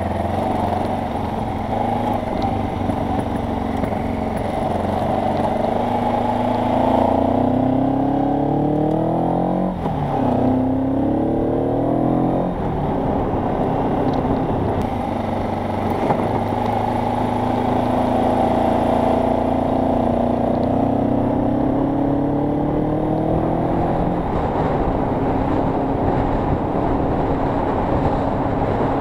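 Kawasaki KLE motorcycle engine pulling under way, its pitch climbing as it accelerates, falling sharply with a gear change about ten seconds in, then climbing again and dipping once more later.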